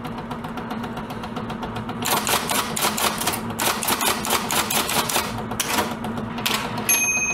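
Typewriter keys clacking in a rapid run of strikes as a title is typed out, ending near the end with a single ring of the carriage-return bell. A low steady hum lies under it throughout.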